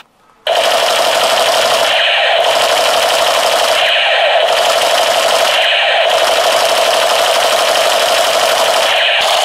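Battery-powered toy machine gun playing its electronic rapid-fire sound effect, a harsh, fast rattling buzz held while the trigger is down. It starts about half a second in after a brief gap and repeats in a loop about every two seconds.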